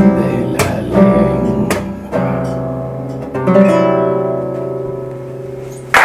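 Guitar strumming a few chords, the last one left to ring and slowly fade. Applause breaks out right at the end.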